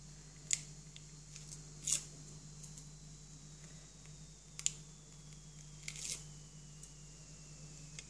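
Backing paper being peeled off strips of double-sided foam tape: faint paper crinkles and about four small sharp clicks at irregular moments, over a steady low hum.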